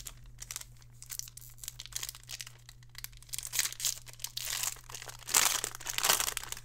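Foil wrapper of a baseball card pack being torn open and crinkled in the hands, a dense run of crackles that is loudest in two spells past the middle.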